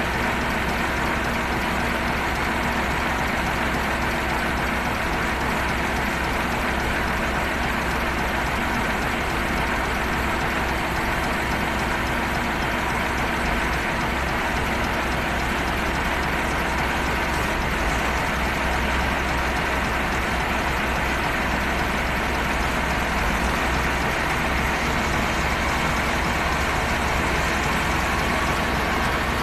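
Heavy diesel engine of quarry machinery running steadily at an even pitch and level.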